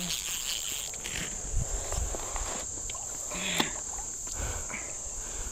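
A steady, high insect chorus, with a few faint low knocks and rustles beneath it.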